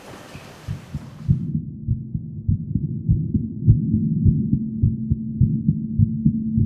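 A woman's heartbeat: quick, repeated deep, muffled thumps that begin about a second in and grow louder, with a steady low hum coming in about halfway through.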